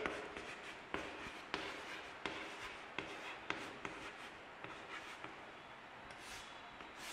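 Chalk writing on a chalkboard: faint taps and scratches of the chalk as letters are written, coming every half second or so.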